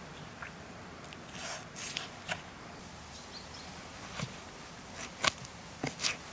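Knife cutting and scraping flesh and membrane from a skinned lamb's head on a wooden block. Short scraping and tearing sounds come with a few sharp clicks, the loudest about five seconds in.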